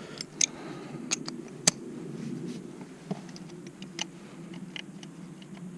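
Scattered light metallic clicks and taps as a ratchet socket and extension are tried on a glow plug in the engine head, the sharpest about a second and a half in, over a faint steady hum.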